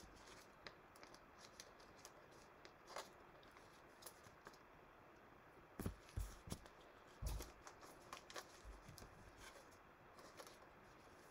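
Faint handling of trading cards by gloved hands: soft scattered clicks and rustles, with a couple of light knocks on the table about six and seven seconds in.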